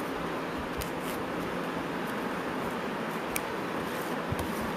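Steady noise of a running ceiling fan, with a few faint clicks of a cardboard cut-out being handled.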